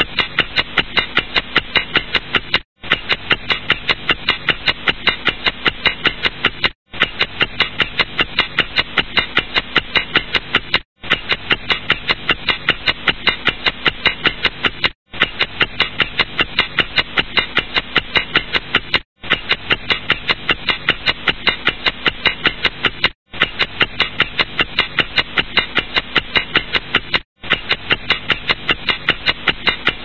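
Clock ticking in a fast, even rhythm. It is a short recording looped, with a brief gap about every four seconds where the loop restarts.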